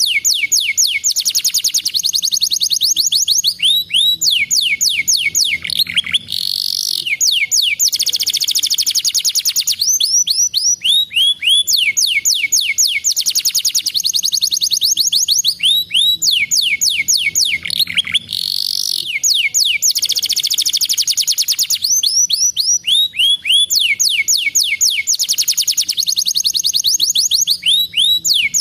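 Domestic canary singing a long, continuous song of rapid trills. Fast runs of falling notes alternate with dense, buzzy rolled phrases, with only brief breaks.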